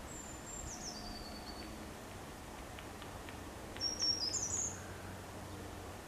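High-pitched bird calls: a thin series of notes stepping down in pitch at the start, and a louder, quick warbled phrase about four seconds in. A few faint light taps come between them.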